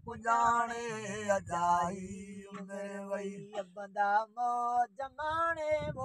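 Sindhi molood, a devotional chant: a man sings a verse in long, wavering phrases over a steady, unbroken low drone held beneath him.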